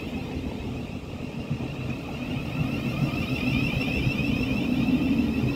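Thameslink Class 700 electric multiple unit at the platform, running with a steady low hum and a faint high whine above it, the hum growing a little stronger toward the end.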